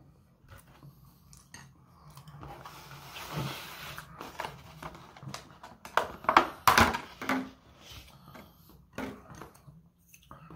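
Quiet chewing, then a clear plastic takeout sushi container being handled and its lid pried open, with a burst of sharp plastic clicks and crackles about six to seven seconds in.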